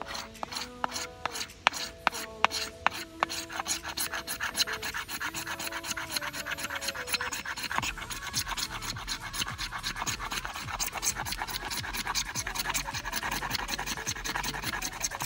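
Ferrocerium rod (fire steel) being scraped with a striker. The strokes come singly at first, then speed up to a quick, steady rasping of about five or six strokes a second.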